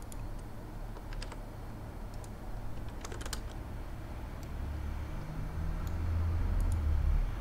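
A few separate clicks of computer keyboard keys and mouse buttons as shortcuts are pressed, over a steady low hum that grows louder in the second half.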